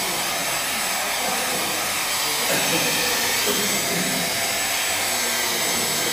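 Hand-held hot-air dryer blowing steadily onto wet watercolour paper, drying the paint.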